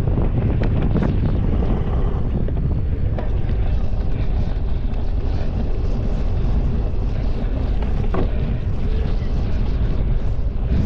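Wind buffeting the microphone of a GoPro action camera on a cyclocross bike in a race, a steady low rumble. Now and then short knocks and rattles come through as the bike jolts over rough ground.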